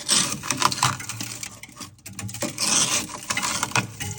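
Flat wooden rice spoon scraping and chipping built-up frost inside a Servel propane fridge: an irregular run of rasping scrapes and sharp clicks as pieces of ice break loose.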